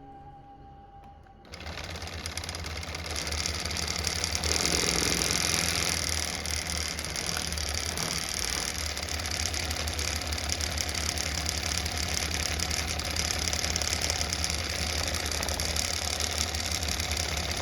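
Oscillating multitool running at a steady buzz, shaking a small airbrush paint bottle held in a homemade shaker attachment. It starts about a second and a half in, as guitar music fades out, and stops near the end.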